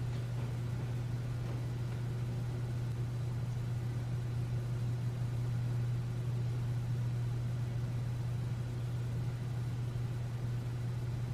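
Steady low hum with an even hiss, unchanging in level.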